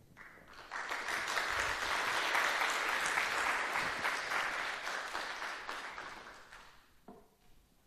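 Audience applauding in a lecture hall. The clapping starts within the first second, holds steady, and tapers off over the last couple of seconds.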